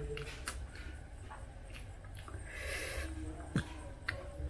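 Soft eating and handling sounds: raw leafy greens rustle briefly near the middle, and a few light clicks and taps come as rice and leaves are picked up by hand from a stainless steel plate, over a low background rumble.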